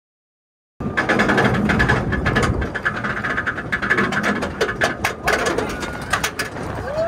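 Kumba roller coaster train climbing its chain lift hill: the lift chain clattering and the anti-rollback ratchet clicking rapidly under the train. It starts abruptly about a second in.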